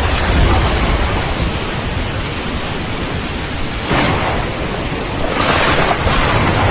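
Heavy rain falling steadily with low thunder rumbling underneath; a sudden louder surge about four seconds in, and the rain and rumble swell again near the end.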